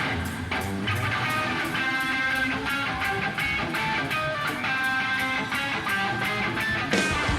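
Hard rock music: a guitar riff over a steady drum beat.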